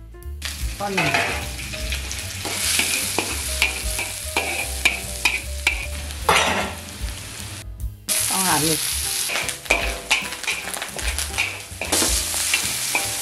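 Chopped preserved radish sizzling as it fries in oil, stirred with a spatula that clicks and scrapes against the pan. The sizzle breaks off briefly about eight seconds in.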